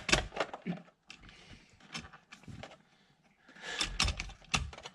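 Scattered clicks and knocks of hands and tools working a loosened steering-wheel airbag free, with a quieter stretch in the middle and a quick cluster of knocks near the end.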